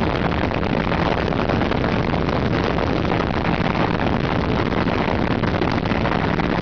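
Flexwing microlight's engine running steadily in flight, a continuous drone with a faint low hum under heavy rushing airflow on the microphone.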